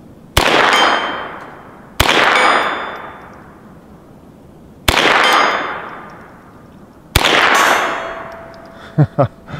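Four shots from a Ruger Charger .22 LR semi-automatic pistol, spaced about two to three seconds apart. Each is followed by a metallic ring, as a hit steel target rings out, and a long fading echo.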